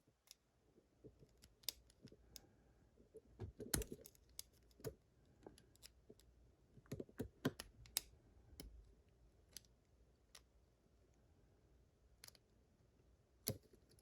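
Faint, irregular small metal clicks and scrapes of a tool working at the retaining clip on the back of a Vachette VIP lock cylinder, a clip that is stubborn to get off. The sharpest clicks come about four seconds in, in a cluster around seven to eight seconds, and once more near the end.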